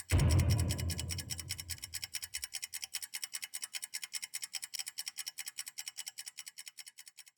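Electronic sound-design score: a deep low hit rings out over about three seconds over a fast, even scratching pulse of noise, about ten beats a second, which fades away and stops near the end.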